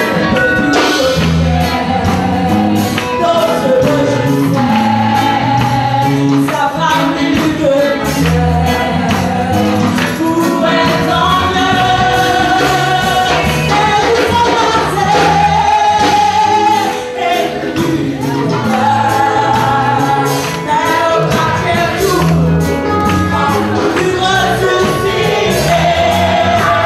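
A congregation singing a gospel praise song together over a steady beat and bass line.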